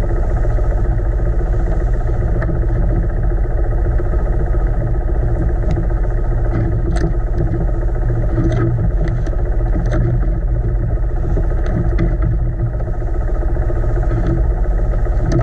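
A boat engine running steadily at a constant speed, a continuous low, even drone.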